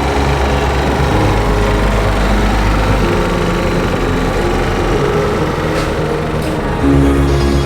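Background music with a steady, dense bass line that changes note every second or two.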